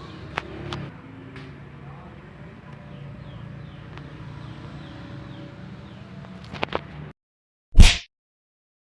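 Homemade alcohol-fuelled mini pistol firing once with a single loud bang near the end, after a short break in the sound. Before it there is low background noise with a few sharp clicks and faint bird chirps.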